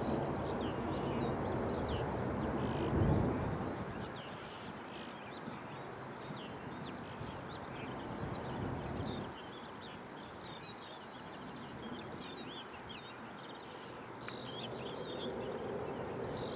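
Small songbirds chirping and trilling over a steady low background rumble.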